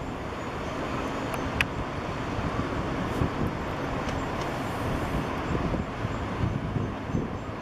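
Steady distant city traffic noise, with one faint click about a second and a half in.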